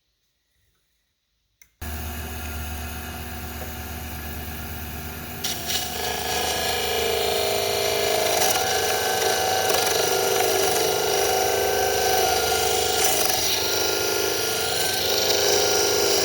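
A click, then an electric power tool's motor starting abruptly about two seconds in and running steadily. From about six seconds in it gets louder and harsher as it starts working against the material.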